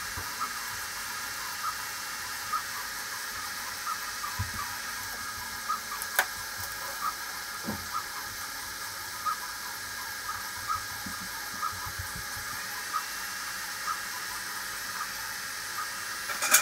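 3D printer running: a steady whir and hiss, with short stepper-motor chirps a little more than once a second. A sharp click comes about six seconds in, and there are a few soft low knocks.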